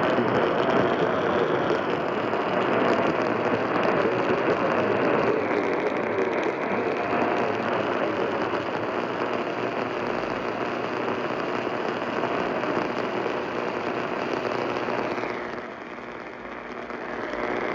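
Static and hiss on a distant AM radio signal, with a faint wavering tone in the first half. The noise sinks for a second or two near the end as the signal fades, then swells back.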